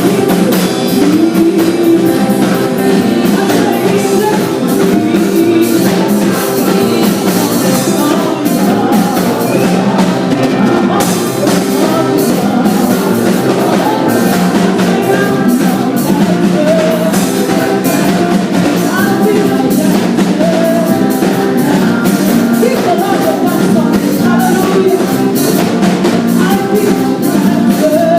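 Praise band playing a rock-style worship song, with drum kit, guitar and singing, loud and steady throughout.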